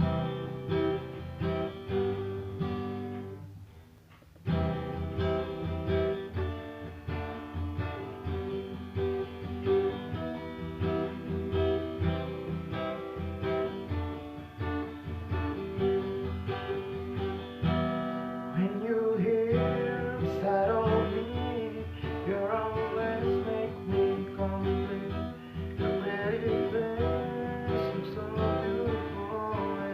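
Music on acoustic guitar, with a short break about four seconds in. From about two-thirds of the way through, a voice sings over the guitar.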